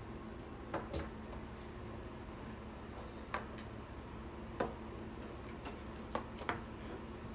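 Scattered small clicks and taps, about seven, of a screwdriver and the plastic plug housing being handled while a wire is worked under a terminal screw, over a low steady hum.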